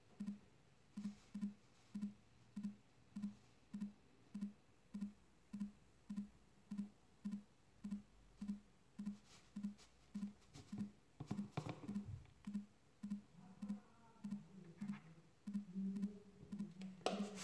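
A low, steady-pitched pulse repeating about twice a second, with faint scattered clicks and rustles as salt is shaken from a shaker into a plastic soda bottle.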